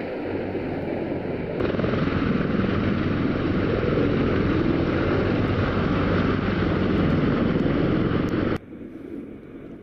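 CH-53 heavy-lift helicopter hovering close by with a vehicle slung beneath it: a loud, steady roar of turbines and rotor with a fast rotor beat, louder from about a second and a half in. Near the end it drops away abruptly to a much quieter rumble.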